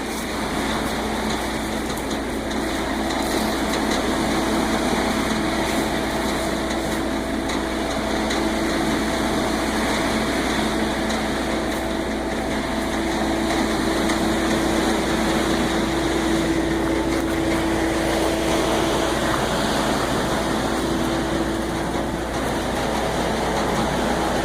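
Concrete mixer truck's engine running steadily, a continuous hum with a low held tone that shifts slightly in pitch.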